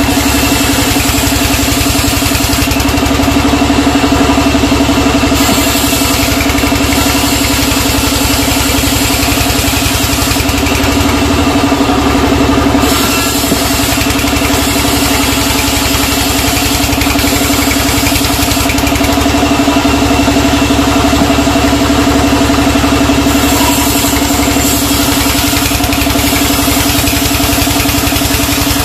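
Sawmill band saw running continuously, cutting teak logs, with a steady hum under a loud hiss. The higher part of the hiss thins out briefly three times.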